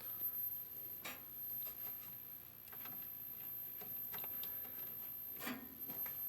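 Steady high-pitched whine of a 1957 Wards Airline valve black-and-white TV's horizontal flyback circuit, a sign that the set is powered and its horizontal sweep is running, with a few scattered light clicks.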